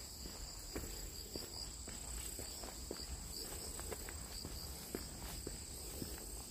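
Footsteps on a packed dirt forest trail, about two steps a second, over a steady high chirring of insects.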